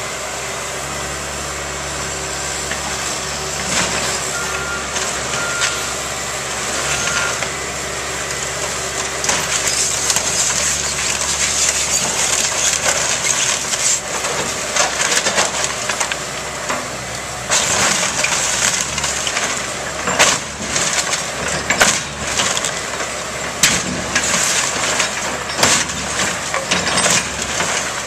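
Excavator engine running steadily while its bucket crushes and drags demolition debris of wood framing and siding, which cracks, splinters and clatters. The sharp cracks and knocks come thicker in the second half.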